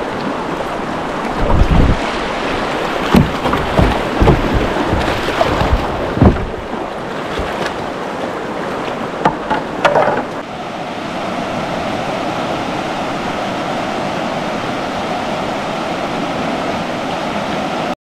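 Rushing whitewater river, heard from a camera mounted on a kayak, with several low thumps and knocks in the first few seconds. After about ten seconds it settles into a steady, even rush of water.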